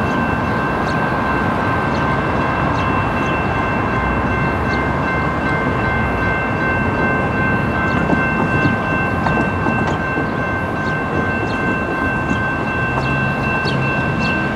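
Railroad grade-crossing warning bells ring steadily with a regular strike about once a second. Under them is the low rumble of an approaching diesel passenger train led by an Amtrak locomotive.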